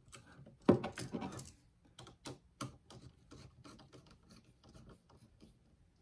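Small, irregular clicks and scrapes of a screwdriver working a terminal screw on a light switch, with one sharper knock about a second in.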